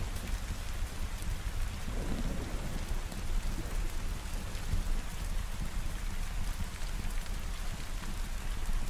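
Steady heavy rain falling, with a low rolling rumble of thunder underneath.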